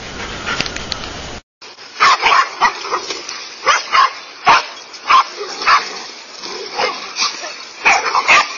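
A pack of dogs barking at a snake they have surrounded: short, loud barks coming quickly one after another, about two a second, starting about two seconds in. Before that there is a steady hiss, which cuts out briefly.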